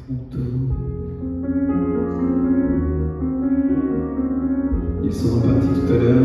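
Grand piano played live in a concert hall, slow held chords with no singing. About five seconds in, a hiss-like layer joins above the piano and the music grows louder.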